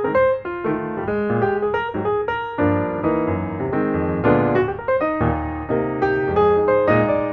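Background piano music: a steady, flowing run of notes.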